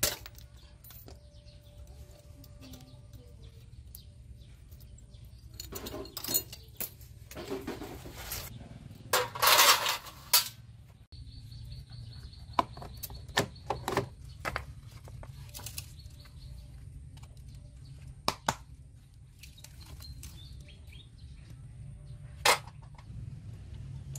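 Scattered metallic clicks and knocks as a motorcycle's drive chain and sprockets are handled, with a louder rattling scrape about nine seconds in, over a steady low background hum.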